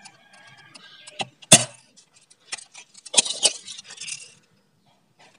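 Spring-powered pump-action airsoft shotgun being fired and worked: a sharp shot about one and a half seconds in, then metallic clacks of the pump being racked about three seconds in.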